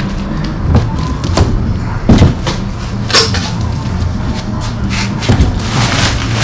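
A cardboard shipping box being opened and handled: scattered knocks, scrapes and rustles of cardboard, the loudest thumps about two seconds in and just after three seconds, over a steady low hum.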